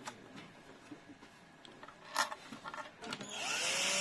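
A small electric screwdriver starts up about three seconds in and runs steadily with a slightly rising motor whine, driving in a screw that fixes the lock to the door. It is preceded by quiet handling and a single click.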